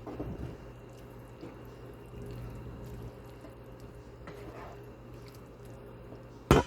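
Wet stirring of saucy chicken and broccoli in a pan, with soft scrapes and squishes over a steady low hum, and one sharp knock near the end.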